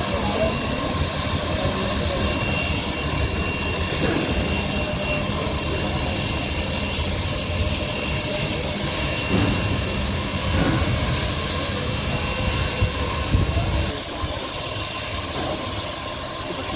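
Steam locomotive hissing steam over a low, uneven rumble; the rumble eases about fourteen seconds in.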